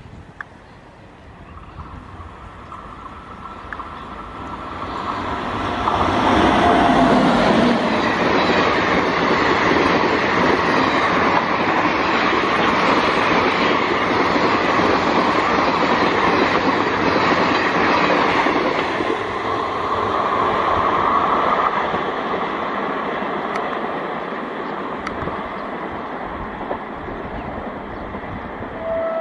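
Passenger express train hauled by an electric locomotive passing at speed. The noise builds over the first few seconds as it approaches. The coaches' wheels then clatter and rush past on the rails for about a dozen seconds, and the sound fades as the train recedes.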